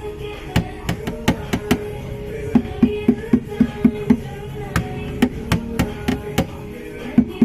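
Quick runs of knuckle knocks on a car's sheet-metal body panel, each a short dull thud, over background music.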